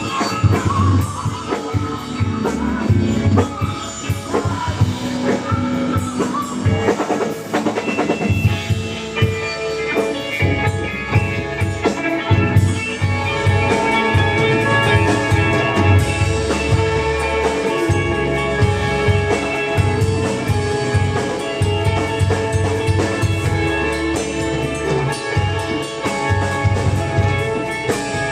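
A rock band playing an instrumental passage on drum kit and guitar, with a steady beat and no singing.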